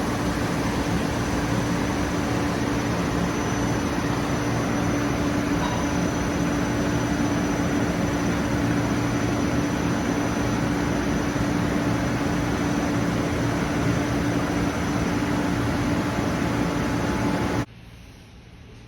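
Taiyo Koki CVG-13 grinding machine grinding a cast-iron (FC250) part: a steady, loud grinding noise with a constant hum and a thin high whine underneath. It cuts off abruptly near the end.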